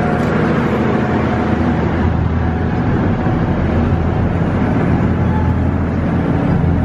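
The ferry's engines running steadily under way with a low hum, mixed with a rush of wind and water, as the boat pulls away from the landing.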